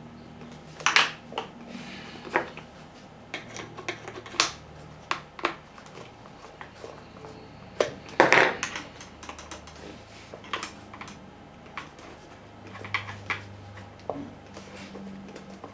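Irregular small clicks and taps of a plastic radio case being handled and its screws worked with a screwdriver, with a louder knock about a second in and another about eight seconds in.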